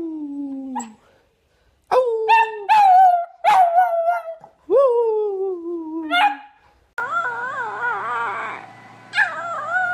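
Beagle puppy howling: short sharp yelps that each stretch into a long howl sliding down in pitch, several in a row. About seven seconds in, a second small puppy gives higher, wavering howling cries over a steady hiss.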